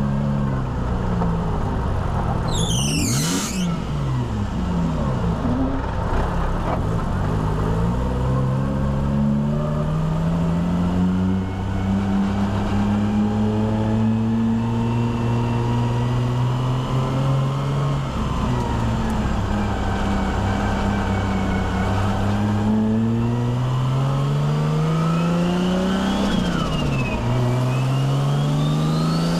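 Nissan Skyline R33's turbocharged RB25DET straight-six with a screamer pipe, accelerating and changing gear: the engine note climbs and drops several times, with the revs falling quickly at the shifts. About three seconds in, a brief fluttering burst comes as the throttle closes, typical of a turbo without a blow-off valve.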